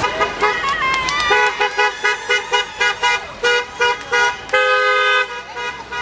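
A car horn honking in a quick run of about a dozen short toots, roughly four a second, then one longer blast about four and a half seconds in. It is a driver answering the call to honk for Japan.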